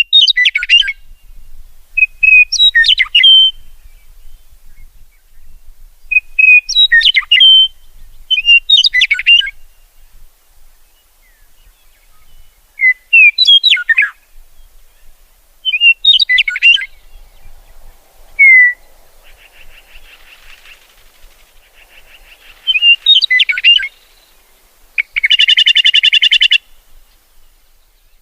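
Songbird singing short, varied chirping phrases every two to three seconds, ending with a fast buzzy trill.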